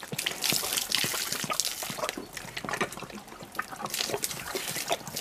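Water splashing from a hose as a brown bear laps and mouths at the stream, a busy run of short wet splashes and slurps. The bear is playing with the water more than drinking it.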